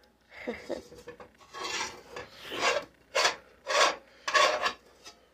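A spatula scraping thick no-bake oatmeal cookie mixture from the sides and bottom of an enamel-coated pot: a series of scraping strokes, the last three short and about half a second apart.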